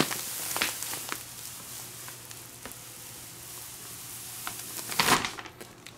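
Plastic wrapper of a latex pillow being worked off the tightly packed pillow: a hiss that fades over the first few seconds, a few light crackles, then a short, louder rustle about five seconds in as the pillow comes free.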